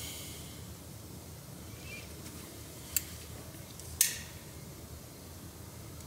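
Two short clicks about a second apart, the second louder, over a low steady hiss: the plastic window switch and door bezel being handled and pressed together.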